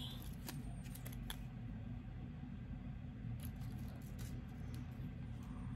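A few faint, short clicks and crinkles of a small plastic zip-lock seed bag being handled, over a steady low background hum.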